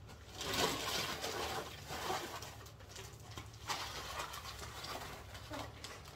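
Tissue paper rustling and crinkling as it is pulled out of a paper gift bag, in irregular crackly spells with a sharper crackle near the middle.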